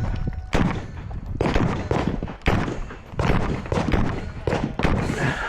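Semi-automatic .308 rifle (PTR91) shots fired in a string at an uneven pace, about seven or eight sharp reports each with a short echo.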